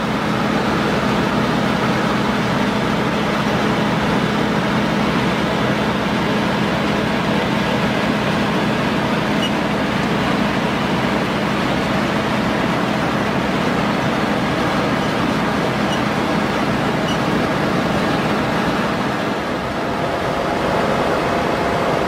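Cold in-place asphalt recycling train at work: a steady drone of heavy diesel engines and milling machinery, dipping slightly near the end.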